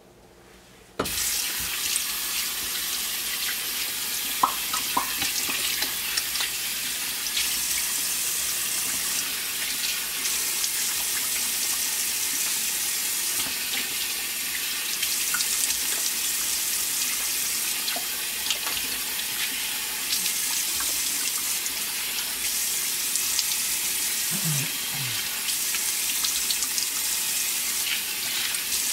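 Bathroom sink tap running steadily, coming on about a second in, with water splashing as a face is rinsed under it.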